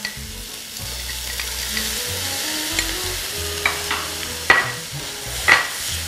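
A sofrito of onion, garlic, paprika and freshly added chopped red sweet pepper sizzling in a stainless steel frying pan. In the second half a spatula stirs it, knocking against the pan three or four times.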